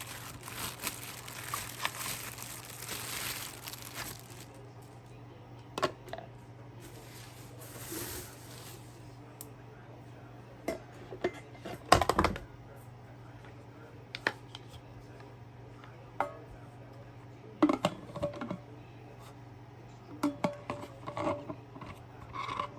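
Plastic packaging crinkling for the first few seconds, then scattered clicks and knocks of coffee maker parts being unpacked and handled, the loudest a sharp knock about twelve seconds in.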